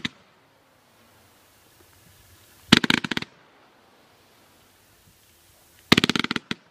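World Class Fireworks 'Frontlines' firework cake firing two volleys of shots about three seconds apart. Each volley is a rapid string of sharp bangs lasting about half a second. The end of an earlier volley is heard at the very start.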